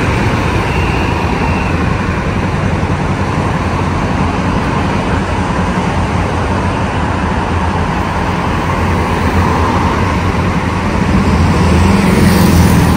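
Road traffic on a wide city avenue: cars and a motor scooter driving past in a steady rumble. It grows louder near the end as a vehicle passes closer.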